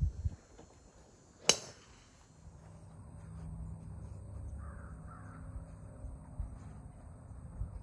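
Sharp, loud crack of a driver striking a golf ball off the tee, about a second and a half in. After it comes a low rumble, with two short calls in the background about halfway through.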